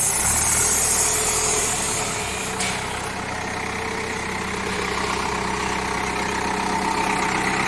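Diesel engine of a Cat 424B backhoe loader running steadily at idle, with a single sharp click a little under three seconds in.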